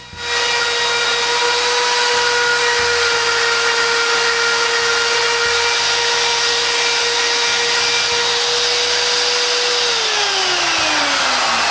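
Electric router running steadily at full speed in a threading jig, cutting a screw thread on the end of a wooden dowel post. About ten seconds in it is switched off and winds down in a falling whine.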